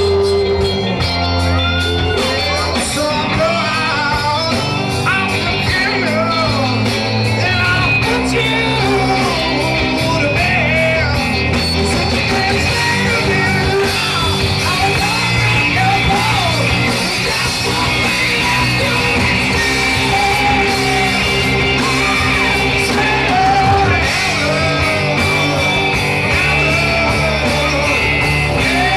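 Live rock band playing: a male lead singer singing and shouting over electric guitars, bass and drums, recorded from within the audience.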